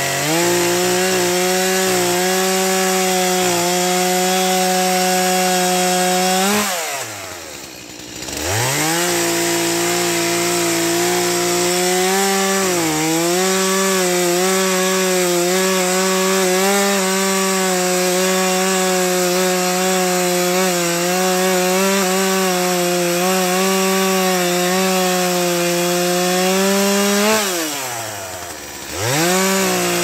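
Stihl two-stroke chainsaw running at full throttle while cutting through a log, its pitch sagging a little under load. Twice, about six seconds in and near the end, the throttle is let off and the engine falls toward idle before revving back up.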